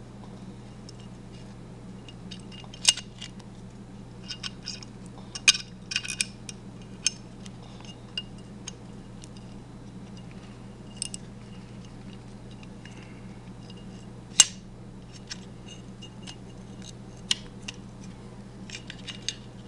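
Scattered small clicks and clinks of a clamp and metal parts being handled and fitted on an AR-15 lower receiver, with one sharper click past the middle. A steady low hum runs underneath.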